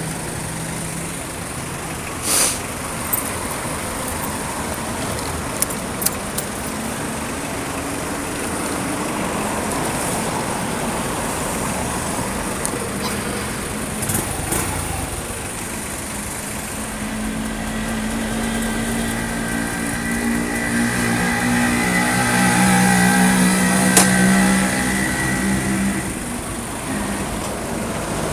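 Steady street traffic noise, with a motor vehicle's engine passing close and growing louder through the second half, loudest about three-quarters of the way through before easing off. A few sharp clicks sound in the first several seconds.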